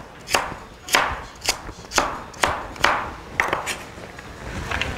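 Chef's knife dicing a carrot into small cubes on a cutting board: sharp knocks of the blade striking the board, about two a second, growing sparser in the last second or so.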